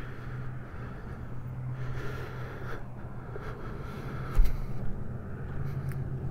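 Harley-Davidson motorcycle's V-twin engine idling steadily, with a low thump about four seconds in.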